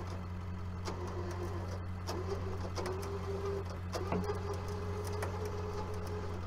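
Tow truck winch running under load, pulling on an overturned mini excavator: a steady mechanical whir over the low hum of the truck's idling engine, with a faint higher whine that comes in about three seconds in and holds from about four seconds on, and scattered light clicks.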